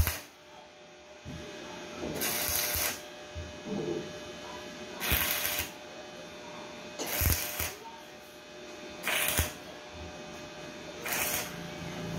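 Electric arc welder laying a series of short tack welds on a cracked Stihl 070 chainsaw crankcase: five short bursts of arc noise, each under a second long, about two seconds apart.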